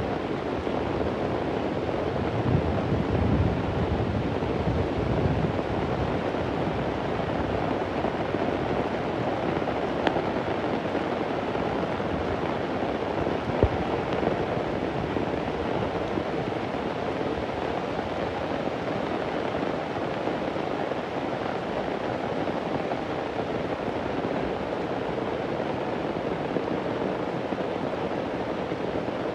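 Heavy rain falling steadily, with a low rumble of thunder a few seconds in. Two sharp taps stand out near the middle.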